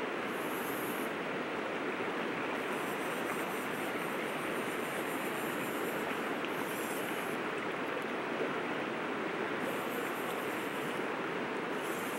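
Steady rushing of a river flowing over a rocky bed.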